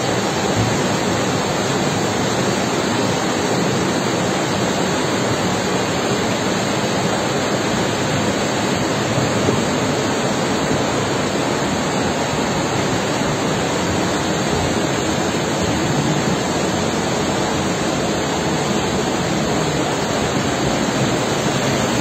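Steady rushing of a river in violent flood, its muddy water laden with cut logs.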